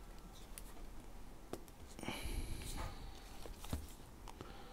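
Faint handling noises from a Dell XPS 15 9510 laptop's open insides: a few light clicks and a short scraping rustle about halfway through, as fingers press the battery and its connector back into place.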